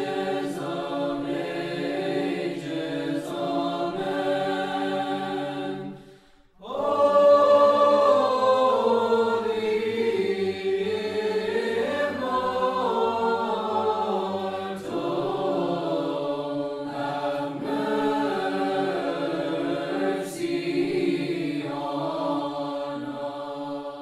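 Choir singing Orthodox liturgical chant in held, slowly changing chords. It cuts out for a moment about six seconds in, then starts again on a new, louder phrase.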